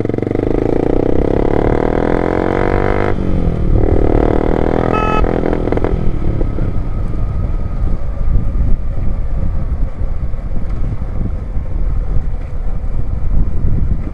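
Loud motorcycle engine running under way, its pitch rising and falling with the throttle. About six seconds in the engine note disappears, leaving only wind and road rumble: the bike has cut out by itself while moving, a recurring stalling fault whose cause the rider doesn't know.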